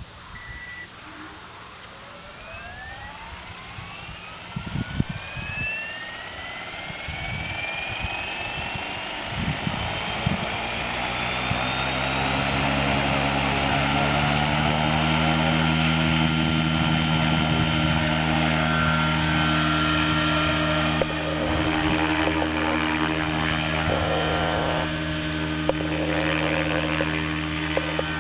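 Align T-Rex 600E Pro electric RC helicopter spooling up: the brushless motor's whine and the rotor climb in pitch for about twelve seconds, then hold steady at flight speed. Gusts of wind buffet the microphone during the spool-up.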